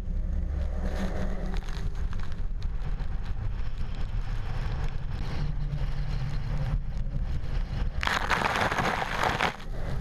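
Typhoon wind buffeting the microphone with a steady low rumble, over the wash of heavy surf breaking against a seawall. About eight seconds in, a louder rushing hiss of breaking water and spray lasts about a second and a half.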